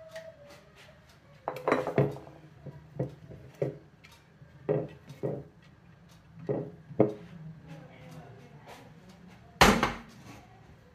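Clinks and knocks of a large glazed ceramic serving plate and utensils being handled: about a dozen strikes, several ringing briefly, with one loud bang near the end.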